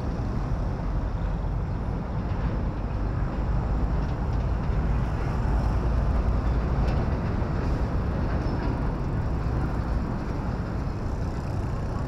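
Steady low rumble of street traffic, motor vehicles running close by, with no pauses or sharp events.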